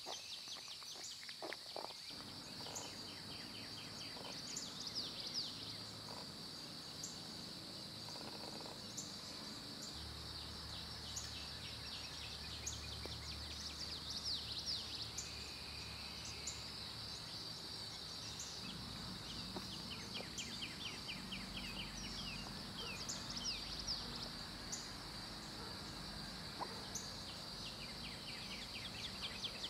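Summer park ambience: a steady high-pitched insect buzz, with birds chirping and giving quick trills now and then, over a faint low rumble.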